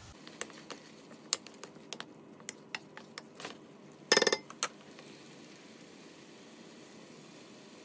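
Kitchen utensils tapping and clinking on a stainless-steel frying pan holding a thick tomato masala: a scattered run of light taps over the first three seconds, then a short, louder clatter of stirring about four seconds in, and one last tap.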